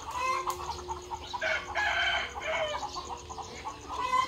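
A flock of chickens calling: hens clucking in short calls, with a rooster crowing once for about a second and a half early in the middle, and a sharp loud call near the end.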